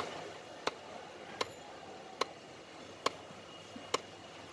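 A large knife chopping a catla fish fillet into chunks on a wooden log chopping block: five sharp chops, evenly spaced a little under a second apart.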